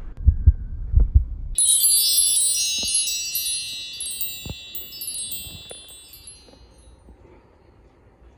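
A few low thumps, then a cluster of high, bell-like chime tones rings out suddenly about a second and a half in and slowly fades away over about five seconds.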